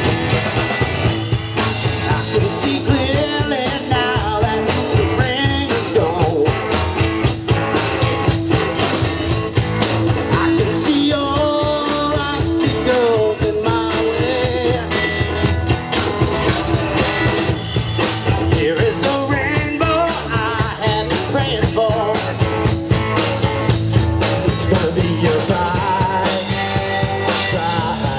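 Live rock band playing: two electric guitars and a drum kit, with a man singing lead vocals.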